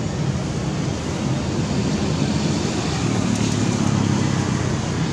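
Steady low rumbling noise, getting a little louder about two seconds in.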